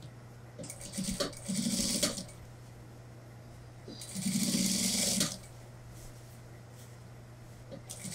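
Industrial lockstitch sewing machine stitching through suit wool in short runs: a brief start about a second in, then a longer run, and a second run of about a second around four seconds in, as a sleeve is sewn into a suit jacket.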